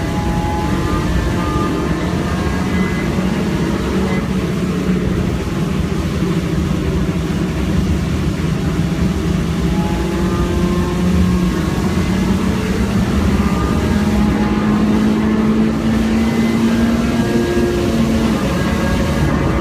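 Car engine heard from inside the cabin, running steadily while driving, its pitch rising a little about two thirds of the way through.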